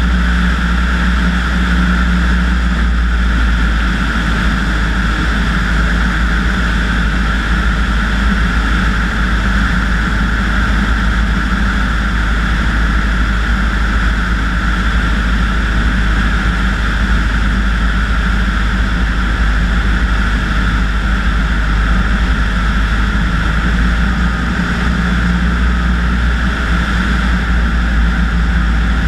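Light single-engine propeller aircraft's piston engine and propeller droning steadily over a constant rush of air, on a full-flap landing approach.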